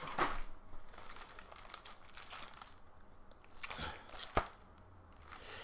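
Cardboard shipping box and its packing being handled and unpacked: a short crinkling rustle at the start, quiet handling, then more rustling and one sharp tap about four seconds in.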